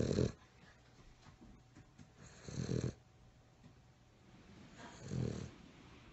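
Boston Terrier snoring in its sleep, one deep snore about every two and a half seconds.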